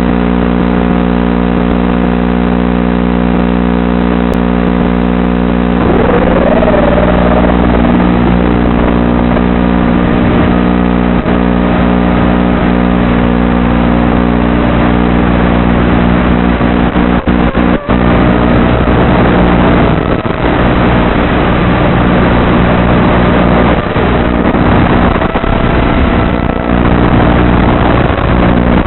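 Eachine Wizard X220 racing quadcopter's four brushless motors buzzing steadily at first, then whining up in pitch about a fifth of the way in and wavering up and down with the throttle. The sound cuts out briefly a few times around the middle.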